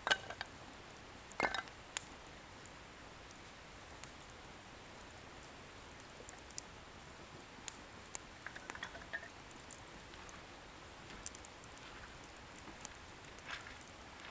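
Wood bonfire burning with a faint steady hiss and scattered sharp crackles and pops of the firewood. The loudest pops come right at the start and about a second and a half in, with a run of smaller crackles around eight to nine seconds.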